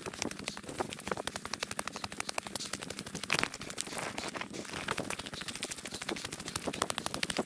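Footsteps crunching on a stony, gravelly path, sped up by the timelapse into a rapid, irregular stream of clicks.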